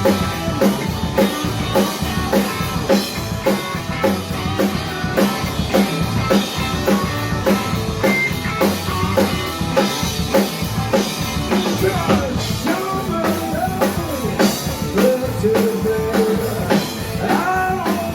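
Blues rock band playing, with a drum kit keeping a steady beat under electric guitar, bass and keys. A lead line bends in pitch and holds a note in the last few seconds.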